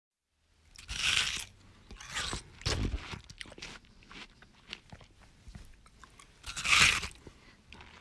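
A person biting into watermelon and chewing it. There is a loud crunch of a bite about a second in, more crunches and small clicks of chewing, and a second loud bite near the end.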